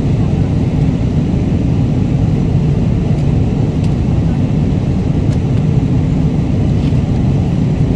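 Steady, loud airliner cabin noise, a deep, even rumble of engines and airflow heard inside the plane in flight, with a few faint small clicks.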